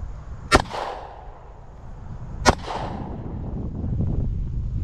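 SIG P320X Compact pistol fired twice, about two seconds apart, each shot sharp with a short echoing tail, over a low rumbling background.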